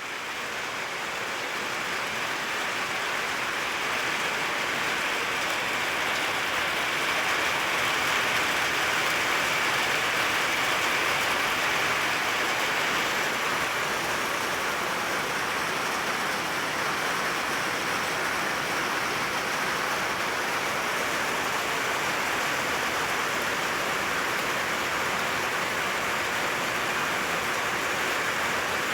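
Steady rain falling, an even hiss of many drops that holds level after swelling in over the first few seconds.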